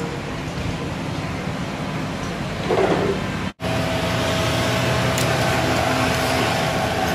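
Machine-shop motors running steadily. About halfway in, the sound breaks off abruptly and changes to a portable cylinder boring machine running on an engine block: a steady motor hum with a thin, even whine as it bores a cylinder.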